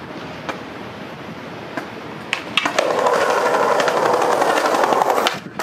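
Skateboard wheels rolling over rough asphalt and paving, growing loud and gritty with rapid ticks as the skater approaches. The rolling cuts off abruptly near the end as the board leaves the ground.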